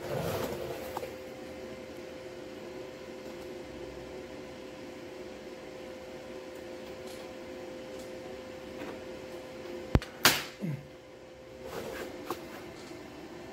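Steady electrical hum of a welding machine switched on and idling, its cooling fan running. A knock of handling comes near the start, and a sharp click and a loud clatter of metal about ten seconds in.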